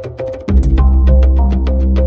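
Background music with a quick, even ticking beat, about six ticks a second; a deep bass and held chords come in about half a second in and make it louder.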